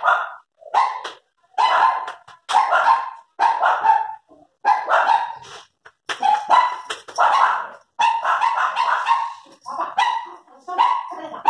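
A dog barking over and over, about two barks a second with brief pauses between runs.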